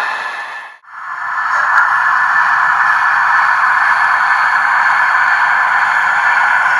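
LokSound V4 sound decoder in an HO-scale Ae 8/14 electric locomotive model, playing a steady electric-loco running hiss through a small speaker. The sound cuts out briefly just under a second in, then fades back up and runs on steadily.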